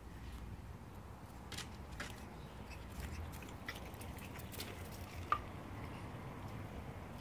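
Boston terrier puppies scampering on concrete: scattered light taps and clicks of small paws, with one short, sharp sound about five seconds in, the loudest moment.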